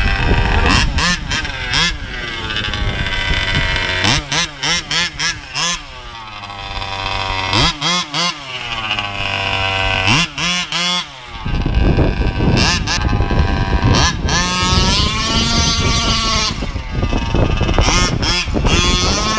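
Small two-stroke petrol engine of a 1/5-scale RC truck revving, its pitch rising and falling with throttle blips, with a run of quick short blips and longer revs later on.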